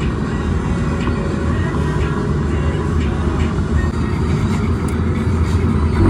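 Car driving along a paved road: steady engine and tyre rumble.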